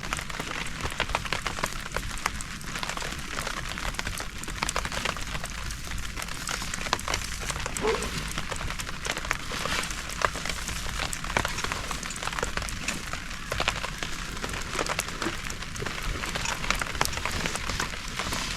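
Rain pattering steadily, a dense irregular patter of many small drops.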